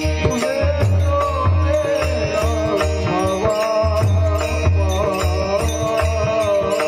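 A man's voice singing a long, ornamented devotional melody line without clear words, over a held instrumental drone, a low drum beat and regular small-cymbal strikes.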